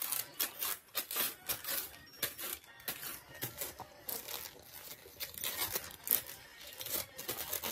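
A thin sheet crinkling and rustling as it is handled, in many quick, irregular scratchy strokes.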